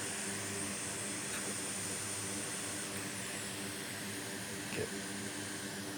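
Steady blowing hiss with a low hum underneath, the sound of a bench fan or blower running, with one small tick about five seconds in.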